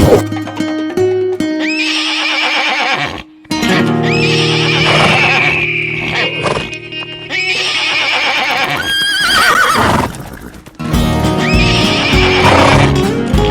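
Horse whinnies added as sound effects, heard four or so times as quavering, falling calls over background music with steady low notes.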